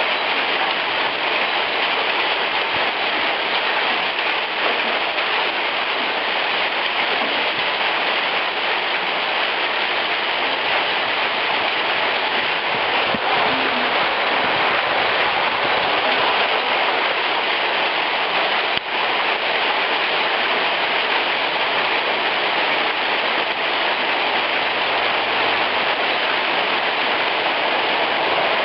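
Heavy hail falling on a cobbled stone street: a dense, steady clatter of hailstones striking and bouncing on the stones.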